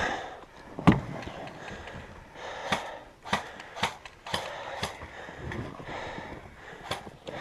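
Scattered sharp clicks and knocks: a loud knock about a second in, a quick run of four clicks a few seconds in, and a few more near the end.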